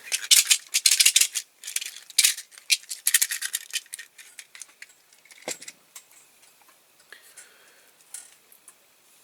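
Small hard objects clattering and rattling as hands rummage among tools and bits on a workbench, busy at first and then thinning to scattered light clicks and taps after about four seconds.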